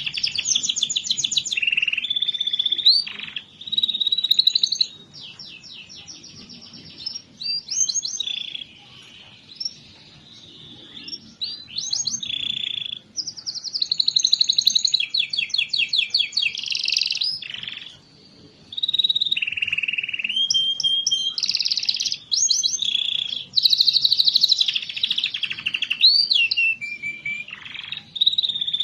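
Domestic canary singing a long, fast song of rapid trills, rolls and chirps, with only short pauses: the kind of song played as a lure to get reluctant canaries singing.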